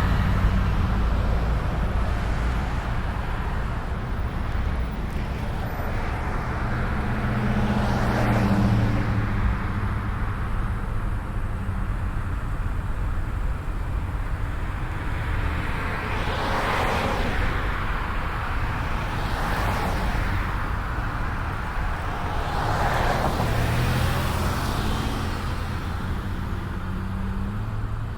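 Road traffic: a steady engine drone with about four cars passing by, each swelling up and fading away.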